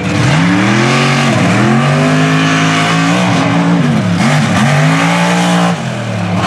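Mega mud truck's engine revving hard under racing throttle, its pitch climbing and falling again and again as the driver works the throttle, with a sharp drop and recovery about four seconds in and an easing off near the end.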